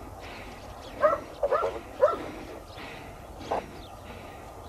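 A dog barking: a quick run of short, sharp barks about a second in, then a single bark near the middle.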